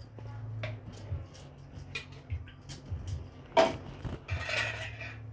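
Steel cooking utensils clinking and scraping against a steel pot as cooked rice is ladled over marinated chicken, with a sharp clink about three and a half seconds in and a short rustling scrape of rice just after. A low steady hum runs underneath.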